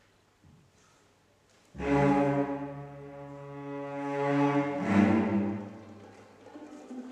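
Chamber orchestra's bowed strings, cellos and double basses prominent, entering suddenly with a loud sustained chord about two seconds in after near silence. The chord swells again with a fresh attack around five seconds, then fades.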